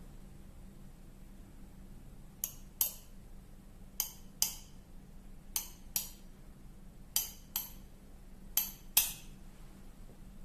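A metal spoon tapped ten times in quick pairs, each tap a short bright clink with a brief ring.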